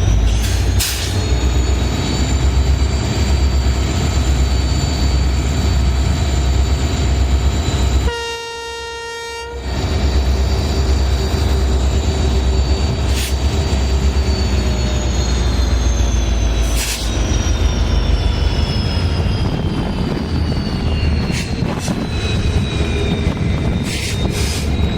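Twin EMD WDG4 diesel locomotives, each with a two-stroke V16 engine, pulling a loaded freight train away from a standstill: a deep, steady engine rumble with a thin high whine above it that slowly falls in pitch. About eight seconds in comes a single horn blast lasting about a second and a half.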